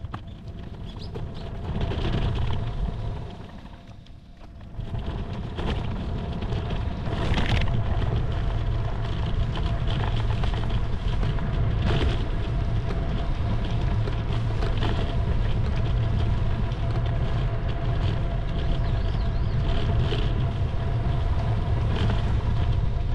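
Wind rumbling on the microphone of a camera riding on a moving bicycle, mixed with road noise. The rumble eases briefly about four seconds in, then runs steady, with a few short knocks.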